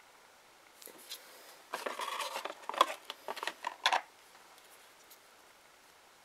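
Handling noise as a glass nail polish bottle is put down and the next one picked up: a run of small clicks, taps and rustles for about three seconds, the sharpest clicks near the end.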